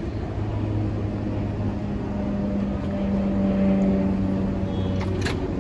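R188 subway train on the 7 line running with a steady low hum, a few low tones held under a noisy rumble. A brief high-pitched squeak comes near the end.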